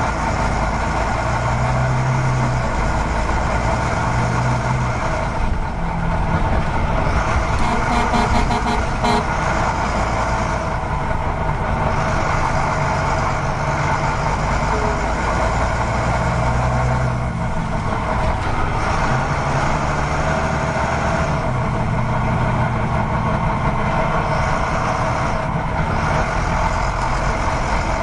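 Truck engine sound effects: a steady running heavy engine with low notes that come and go every second or two.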